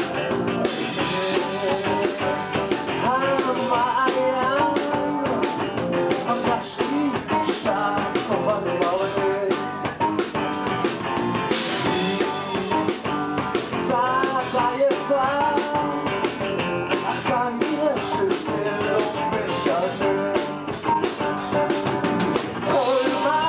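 A live rock band playing at a steady full volume, with a drum kit and an electric bass, and a man singing over it.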